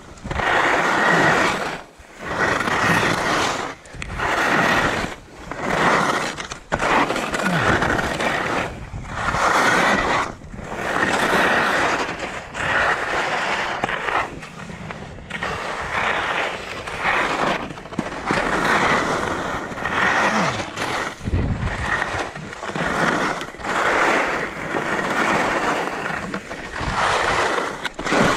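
Skis scraping over hard, icy snow through moguls, one burst of edge scrape with each turn, about one every second and a half; the snow is icy enough that the edges struggle to grip.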